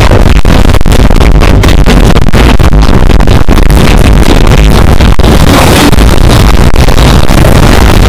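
Fireworks-show music from nearby loudspeakers, recorded so loud that it is heavily clipped and distorted, with a booming, overdriven bass.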